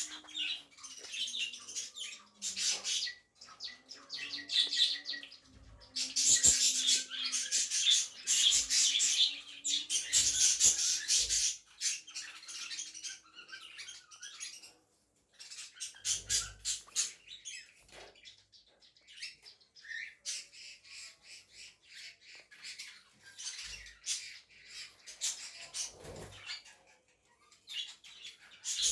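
Pet cockatiel chirping and squawking in long runs of harsh calls, loudest for several seconds from about six seconds in.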